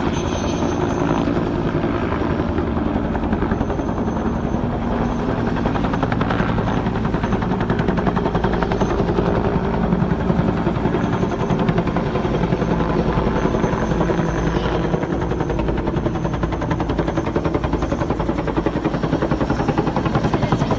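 Search-and-rescue helicopter running close by: a steady, rapid chop of rotor blades.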